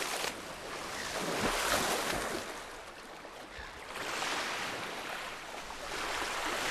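Splashing in shallow water and small waves washing up a sandy beach, a hiss that swells and fades every second or two; a dolphin's tail splashes in the shallows at the start.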